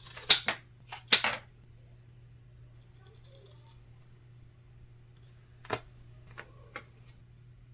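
Duct-tape craft work: four quick, sharp rasping strokes within the first second or so, from a duct tape sheet and scissors being worked, then three light clicks a few seconds later, over a steady low hum.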